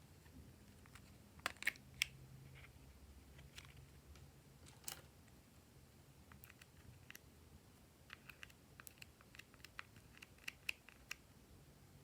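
Faint, scattered sticky clicks and small pops of glossy slime being mixed and pressed by hand, a few close together about a second and a half in and a quicker run of them near the end.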